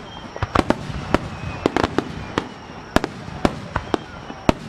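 Starmine fireworks barrage: aerial shells bursting in rapid succession, sharp bangs at irregular spacing about three a second over a continuous rumble. The loudest bang comes near the end.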